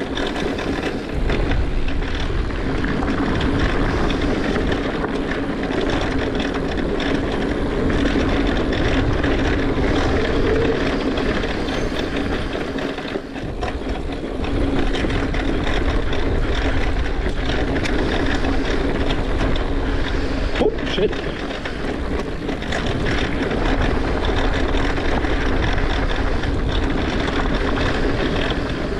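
Mountain bike ridden along a dirt trail: a steady rush of wind over a helmet chin-mounted action camera, mixed with continuous tyre and drivetrain rattle.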